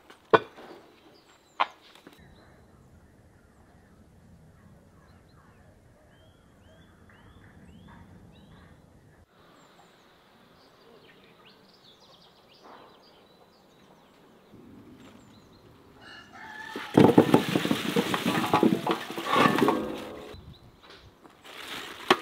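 A rooster crowing loudly for several seconds in the latter part, after a quieter stretch with small birds chirping. Two sharp clicks near the start.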